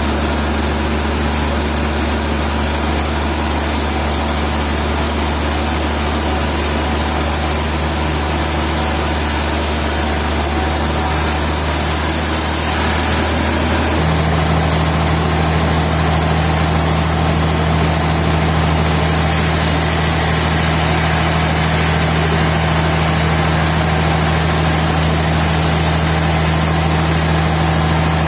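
Steady, loud drone of sawmill machinery running with an engine-like hum. About halfway through the hum settles onto a new, steadier pitch.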